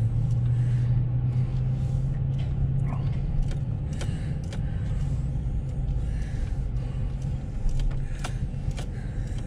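Pickup truck's engine running low and steady while it pulls a boat trailer at low speed, heard from inside the cab, with a few light clicks and knocks scattered through.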